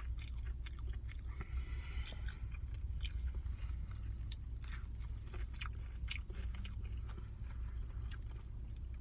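Close-up chewing of a McDonald's chicken nugget dipped in sweet and sour sauce: irregular wet mouth clicks and smacks, over a steady low hum.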